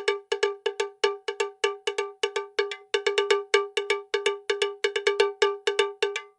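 A rapid, uneven series of short identical bell-like taps on one fixed pitch, about five a second, stopping abruptly at the end.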